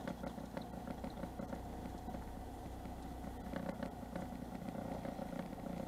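Boat engine idling steadily in neutral, with scattered light clicks over it.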